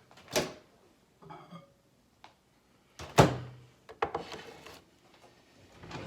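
A few separate knocks and thunks of kitchen handling, the loudest about three seconds in with a short low ring after it.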